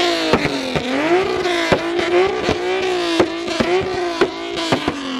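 A car engine is revved hard and held at high revs, its pitch wavering and dipping, with sharp cracks about three or four times a second. Near the end the revs fall away.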